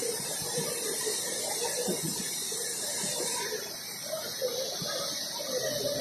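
Steady rushing hiss of a hydroelectric spillway discharging, a heavy jet of water crashing down into spray, with faint voices talking underneath.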